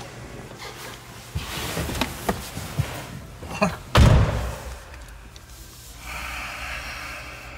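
Knocks and clicks from someone moving about in a car's driver seat, then one heavy slam about four seconds in, followed by a steady hiss.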